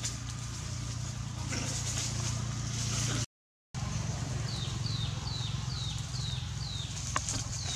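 Steady low rumble of outdoor ambience, broken by a half-second dropout a little after three seconds in. After it comes a run of about seven short, falling high chirps, roughly three a second, and a single sharp click near the end.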